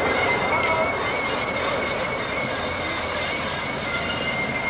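Wheel flange squeal from a Class 20 diesel locomotive moving slowly on curved track: a steady high squeal that wavers slightly in pitch, over the locomotive's running rumble.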